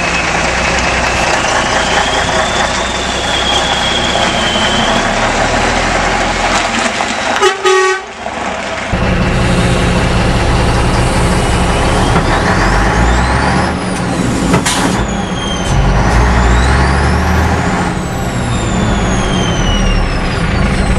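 Pegaso Cabezón truck's diesel engine running: first heard from outside, then, after a brief break about eight seconds in, from inside the cab as the truck is driven and shifted through its gears. High whining tones rise and fall several times near the end.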